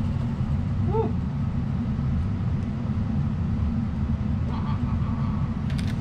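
Fog machine running and pumping out fog: a steady low rumble with no pauses. A short chirp comes about a second in.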